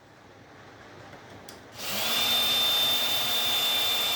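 Electric drill running at a steady speed for about three seconds, starting about two seconds in, with a steady high whine. It is being used to back out screws on an old breaker.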